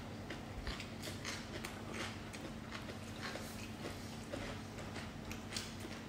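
Close-miked eating sounds: chewing and lip smacks making irregular small clicks, over a steady low hum.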